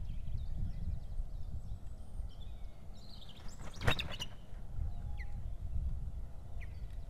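Osprey calling with sharp whistled chirps and flapping its wings on the nest about three to four seconds in. A steady low rumble of wind on the microphone runs underneath, with a few faint small-bird chirps later.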